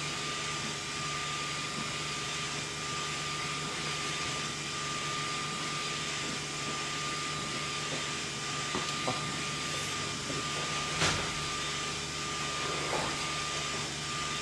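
UV inkjet printer running with a steady hum of fans and pumps and a constant high whine. There is one sharp click about eleven seconds in and a few faint ticks.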